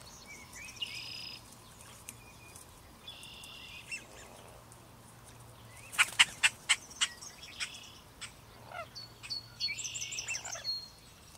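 Marsh birds singing: buzzy, trilled song phrases repeated every few seconds. About six seconds in there is a quick series of about seven sharp clicks, the loudest sound, and near the end come a couple of short falling calls.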